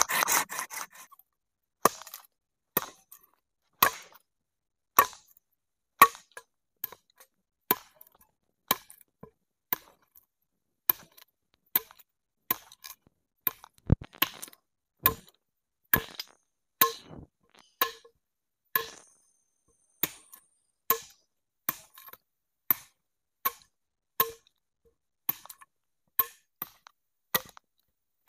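A blade chopping into wood with steady single strokes, about one a second, each giving a short, hollow ring. A short rasping scrape comes first.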